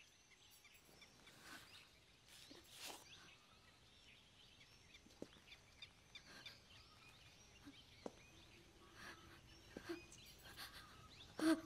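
Faint, quiet background ambience with a few soft chirps and ticks scattered through it.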